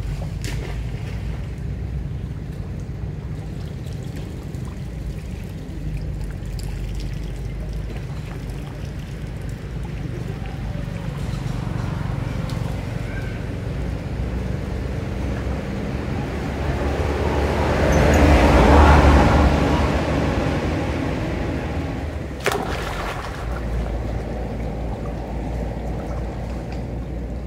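Floodwater lapping and sloshing over a steady low rumble, swelling to a louder rush about two-thirds of the way through, with a single sharp knock a few seconds later.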